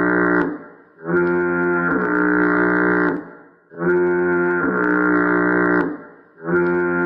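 SpongeBob fog horn sound effect: a loud, low foghorn blast repeated about every two and a half to three seconds. Each blast lasts about two seconds and shifts in pitch partway through. The end of one blast comes first, then two full blasts, and a fourth begins near the end.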